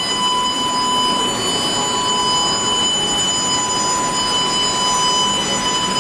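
Wedge wire screen welding machine running: a steady mechanical noise with constant high-pitched whining tones over it.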